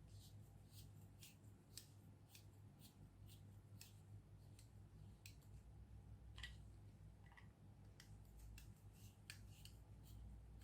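Faint, sharp clicks from hand work on a 3D-printed plastic phone clamp and its screws, about two a second and slightly uneven, over a low steady hum.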